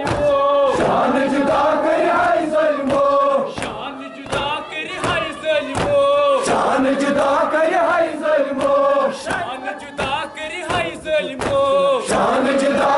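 A group of men chanting a Kashmiri noha, a Muharram mourning lament, in unison: loud, drawn-out sung phrases that repeat. Under the singing runs a steady rhythm of sharp slaps, from hands beating on chests (matam).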